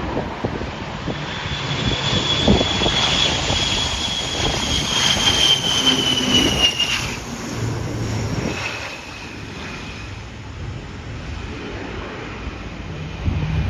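Airliner's jet engines passing on a landing approach: a high whine that slowly falls in pitch and grows loud, then fades about seven seconds in. Gusty wind buffets the microphone underneath.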